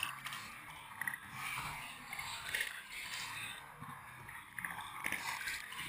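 Lake water splashing and sloshing against a sailing canoe's hull and the waterproof camera housing just above the waterline, in irregular crackling bursts over a low rumble.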